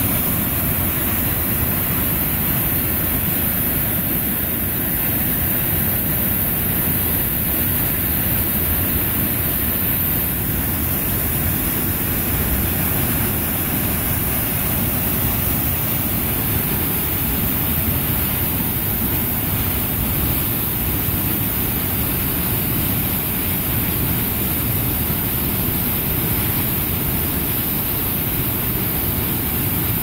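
Sol Duc Falls in heavy flow: water plunging into a narrow rock gorge, making a deep, steady, unbroken rush.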